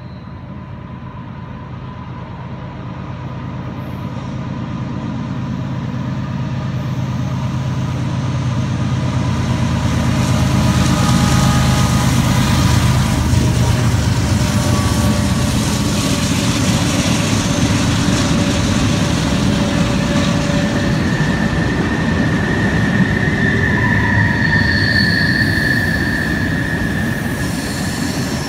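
BNSF freight train rolling by: a low rumble and rattle that grows louder over the first several seconds and then holds steady. Thin, high wheel squeals come and go, with a longer one in the last third.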